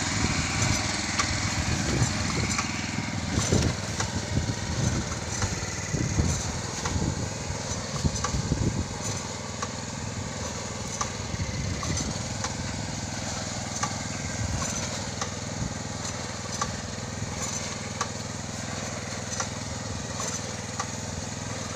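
Small engine of a ride-on vegetable transplanter running steadily as the machine plants seedlings along a plastic-mulched bed, with scattered light clicks.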